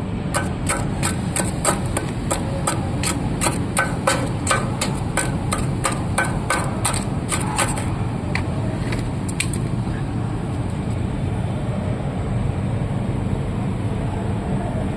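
A hammer striking steel in a steady run of sharp blows, about three a second, that stops after about nine and a half seconds. A steady low hum continues underneath throughout.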